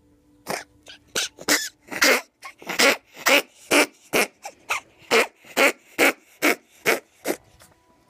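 Ferret coughing: a fit of about twenty short, harsh coughs, about two a second, stopping just before the end. The cough is a sign of the ferret's heart disease, congestive heart failure.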